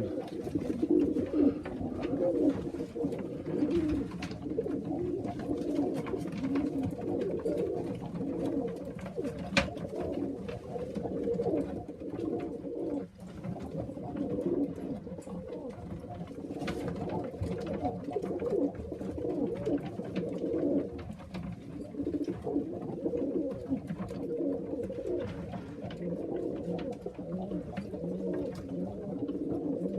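Many domestic pigeons cooing together without pause in a small loft, a dense low overlapping chorus, with the odd faint click or tap. The birds are being paired up in the nest boxes, and the cooing is their courting.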